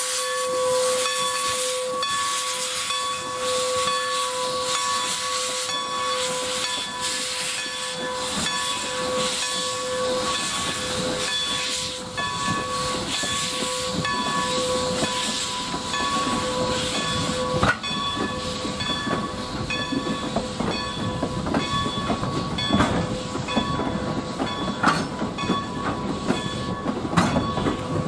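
Steam locomotive No. 90, a 2-10-0, passing at low speed with steam hissing, accompanied for the first half by a steady whine. Then its wooden passenger coaches roll by, with scattered clicks and knocks from the wheels on the rail joints.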